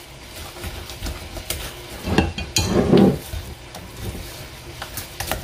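A spoon stirring thick cornbread batter by hand in a glass mixing bowl, with scattered clinks and knocks of the utensil against the glass. The sound swells louder and duller about two to three seconds in.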